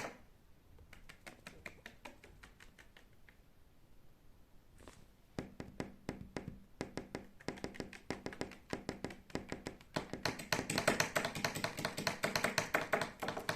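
Fast, light tapping: many small clicks a second, sparse and faint at first, growing dense from about five seconds in and louder again near ten seconds.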